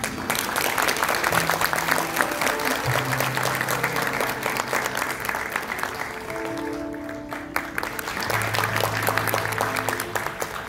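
Audience applauding, thinning briefly in the middle and swelling again before fading near the end. A few long, steady low instrument notes are held underneath the clapping.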